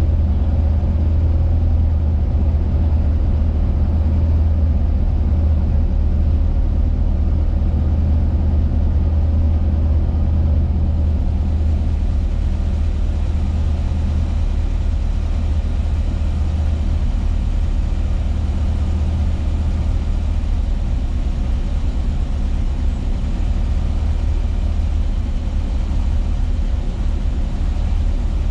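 VW Kombi van's engine running steadily while driving at a constant pace, a deep low drone with no clear revving.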